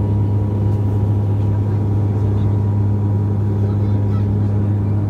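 An engine running at a steady speed: a loud, continuous low hum with fainter higher tones above it that does not change.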